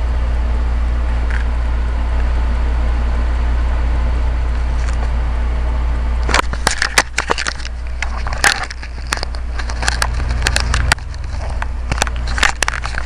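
Steady low hum in the recording, then from about six seconds in a run of sharp clicks and crackles: the plastic body and packaging of a new camcorder being handled.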